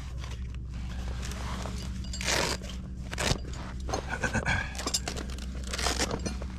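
Crunching and scraping, like boots on snow and ice and gear being handled, in scattered strokes over a steady low hum. A short squeak sounds about four seconds in.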